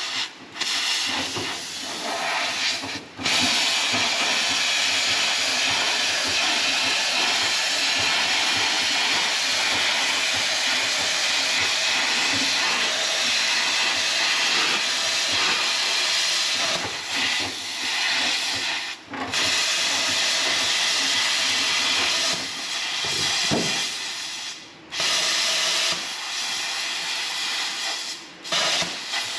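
Plasma cutter hissing steadily as it cuts through rusted sheet-steel floor pan, the arc stopping for a moment about five times between cuts.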